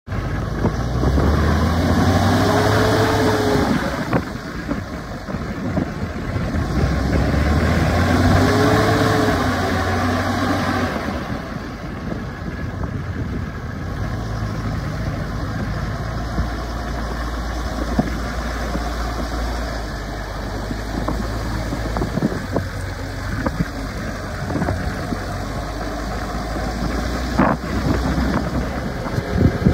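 New Holland T6080 tractor's six-cylinder diesel engine revved up and back down twice, then running steadily at a lower speed.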